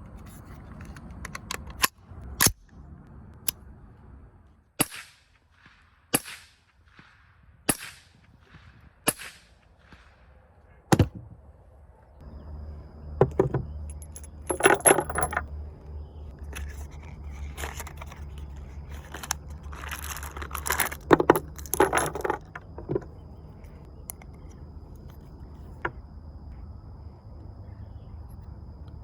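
Firearm shooting and handling: a series of single sharp cracks, about one every second and a half, followed by two spells of rapid metallic clattering and rattling.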